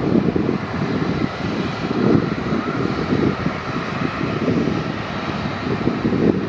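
Boeing 777-300ER's GE90 turbofan engines heard from the ground as the airliner comes in on final approach: a steady jet rumble that wavers in loudness, with a fainter hiss above it.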